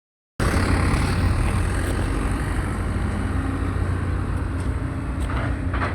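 A ship's engine running with a steady low rumble and a hiss above it, starting suddenly just after the start.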